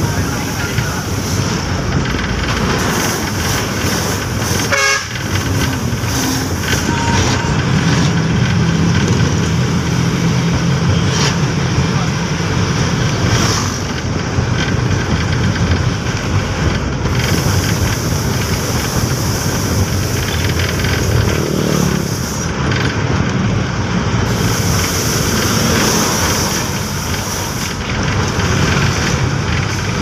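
Steady road and wind noise heard from inside a moving vehicle: engine and tyre rumble with wind rushing past the open window, and another large vehicle passing alongside near the end.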